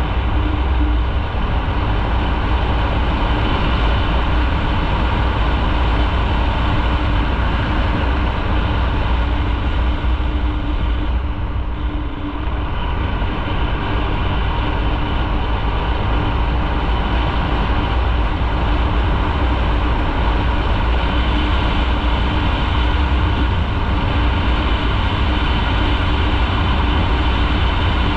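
Motorcycle under way on the road: steady engine and wind noise, with a heavy low rumble, dipping briefly about twelve seconds in.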